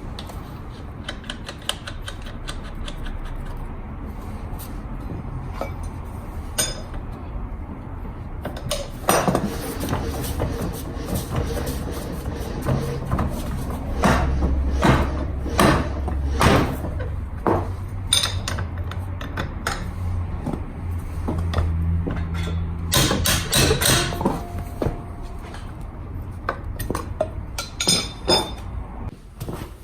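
Metal tools and scooter parts clinking and knocking during rear-wheel repair work: many scattered clicks with clusters of louder knocks, over a low hum.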